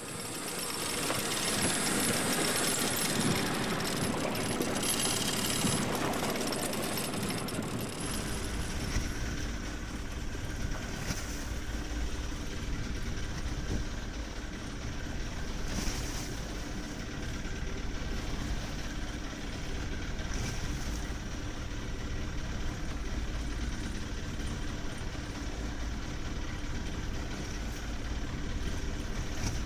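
A fishing boat's engine and deck machinery running steadily while line is hauled in, with a low rumble that sets in about eight seconds in and a few faint clicks.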